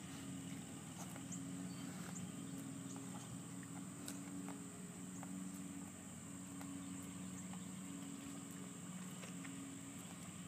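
Steady high-pitched chirring of insects over a low hum, with scattered faint clicks.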